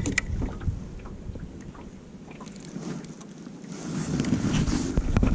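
Wind on the microphone with close rustling and handling noise, a few sharp clicks at the start, and the rustling growing louder in the last second and a half, ending in more clicks.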